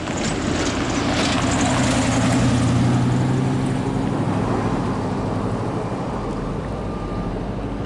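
A large engine running, its rumble growing louder to about three seconds in and then slowly fading, as a heavy vehicle passes.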